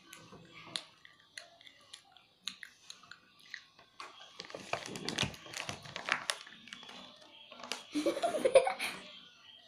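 A child chewing and crunching a hard snack close to a microphone. Scattered bites and clicks give way to a denser spell of crunching, and a brief vocal sound comes near the end.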